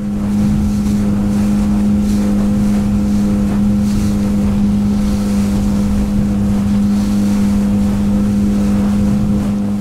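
A small skiff's outboard motor running at a steady speed, its note holding one low pitch, with wind on the microphone and water rushing past the hull.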